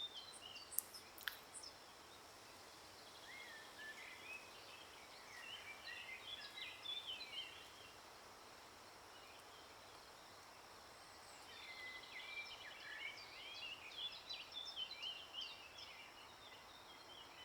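Faint birds chirping in two spells of quick short calls over a steady low hiss: the first about three seconds in, the second around eleven seconds in.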